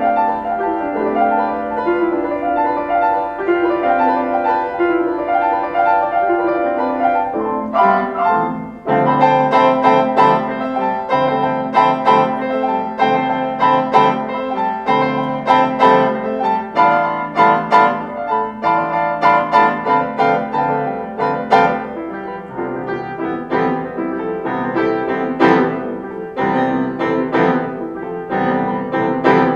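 Solo piano playing. Repeated broken-chord figures run through the first part, a brief dip comes about nine seconds in, and then denser playing follows with many struck notes and chords.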